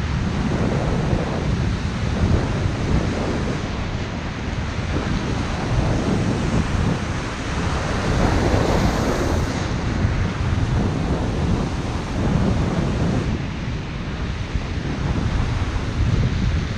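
Ocean surf breaking and washing on the beach, under heavy wind buffeting the microphone with a low rumble. The wash swells briefly about halfway through.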